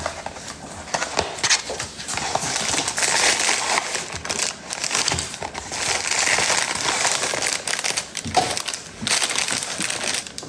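Crinkling and rustling of something handled close to the microphone, with many small clicks and knocks mixed in.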